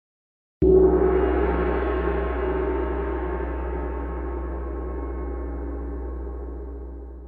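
A single deep ringing hit, used as a dramatic sound effect, strikes suddenly about half a second in and fades slowly over the next six seconds.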